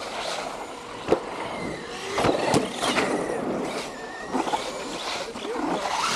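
Radio-controlled model cars driving on a snowy track, their motors whining up and down in pitch as they speed up and slow, with a few sharp knocks, the loudest about a second in.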